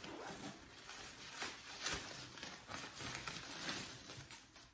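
Plastic packaging and packing material rustling and crinkling, with scattered soft taps and clicks, as items are lifted out of a box.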